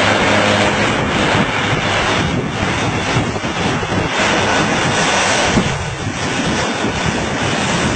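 Single-engine propeller plane's engine running at takeoff power as the plane rolls away down the runway, with wind rumbling on the microphone.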